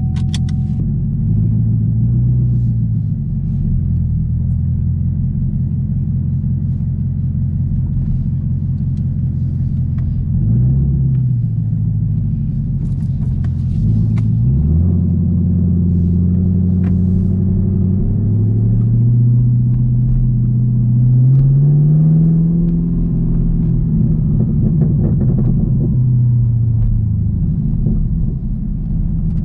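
Supercharged 6.2-litre LT4 V8 of a 2022 Camaro ZL1 running through a newly fitted H-pipe cat-back exhaust, heard from inside the cabin while driving. The engine note rises and falls with the revs: a short rev about ten seconds in, a dip and pick-up a few seconds later, then a slow climb in revs past the middle that eases off near the end.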